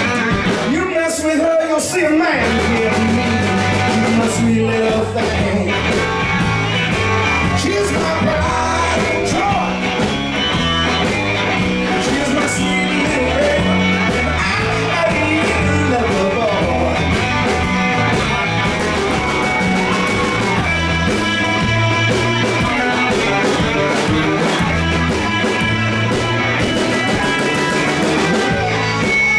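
Live blues-rock band playing a shuffle: electric guitars, bass and drums with a lead vocal. The bass line comes in about two seconds in and keeps a steady repeating pattern.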